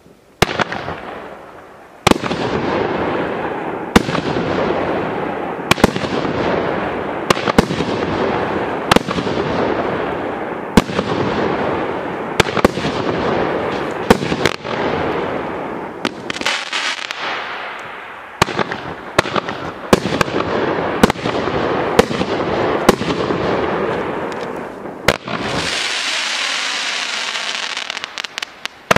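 500 g, 26-shot consumer fireworks cake (Tarzan's Fight) firing: a sharp bang about every two seconds, each followed by a noisy tail as the break spreads and fades. The shots come closer together in the second half, and a long hiss fills the last few seconds.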